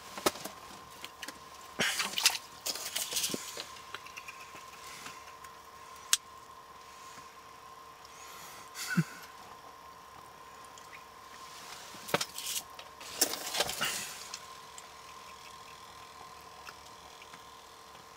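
Scattered clicks and rustling from fishing gear being handled over the ice hole: a cluster a couple of seconds in, a single click, then more rustling near the end. A faint steady hum runs underneath.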